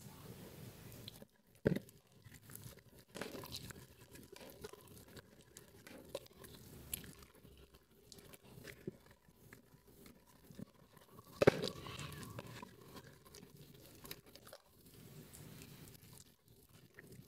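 Soaked, mushy Nuvo red soap squished and kneaded by gloved hands in a metal bowl: a continuous wet crackling and squelching, with two sharper, louder squelches about two seconds in and again near the twelve-second mark.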